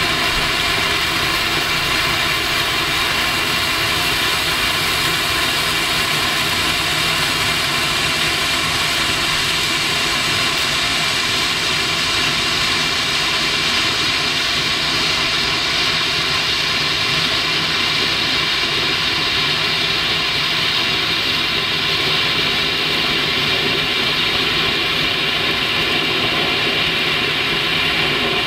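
Tropic Bengal BF1 red hand flare burning with a steady, loud rushing hiss.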